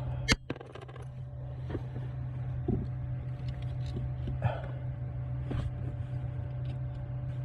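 A small metal nut dropping and striking metal with a sharp clink about a third of a second in, ringing briefly, followed by a few faint taps, over a steady low hum.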